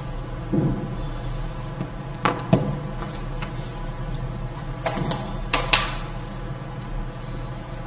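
A few short sharp clicks and knocks, in two clusters, over a steady background hum.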